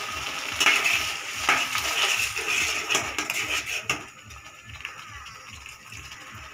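Steel slotted spatula scraping and knocking against a kadai as water is stirred into the masala and peas. The strokes stop about four seconds in and it turns quiet.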